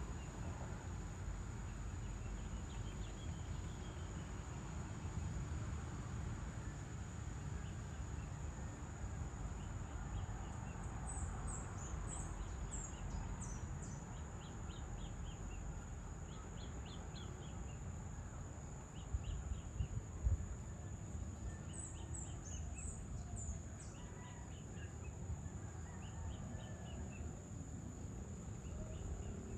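Evening outdoor ambience: a steady low rumble under a constant high-pitched insect drone, with birds chirping in short quick series of high notes about a third of the way in and again about three-quarters through. A few dull knocks come about two-thirds of the way through.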